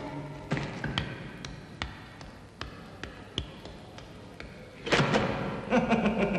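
Sparse percussive film soundtrack: a sudden struck hit, then a string of sharp knocks at uneven intervals. About five seconds in comes a second loud hit, followed by held low tones.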